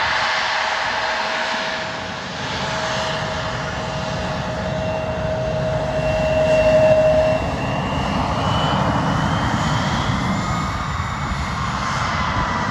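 Airplane engine running, a dense roar with a whine that rises slightly in pitch, grows loudest about seven seconds in and then drops away suddenly.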